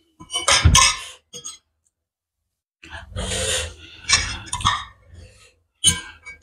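Close-miked mouth sounds of eating noodles, slurping and chewing in two spells with a short pause between them and a brief sound near the end.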